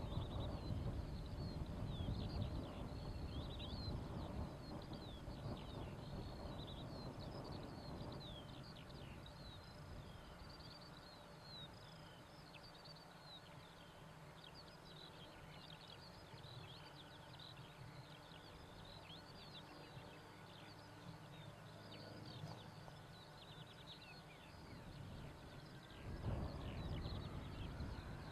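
Many small birds chirping and singing over a low outdoor rumble and a faint steady jet whine. Near the end a louder rumble comes in and the whine rises in pitch, as the Boeing 747-400's engines spool up.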